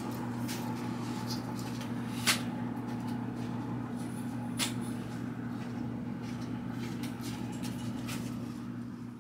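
A steady low hum with scattered light clicks and knocks: one sharp knock about two seconds in and a smaller one about four and a half seconds in.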